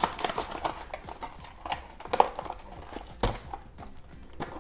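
Small cardboard toy boxes being handled: scattered light taps, clicks and rustles, with a sharper click about two seconds in and a dull thump a little after three seconds as a box is set down on the wooden tabletop.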